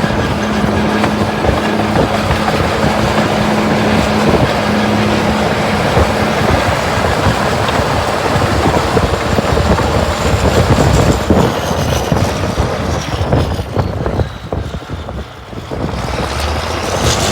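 Caterpillar D7 crawler dozer's diesel engine running under load while pushing snow, a steady dense engine noise that dips briefly near the end.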